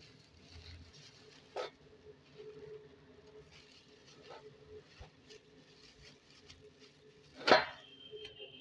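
Thin plastic bags crinkling and rustling as they are handled and filled with cooked rice, with a light knock about one and a half seconds in and a much louder sharp thump near the end.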